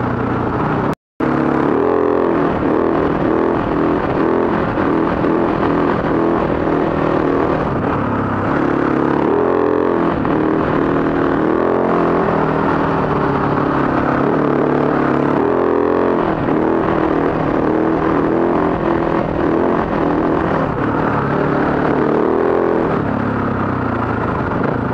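Husaberg dirt bike engine running under way, its pitch rising and falling with the throttle, with wind rush on a helmet-mounted camera. The sound cuts out for a split second about a second in.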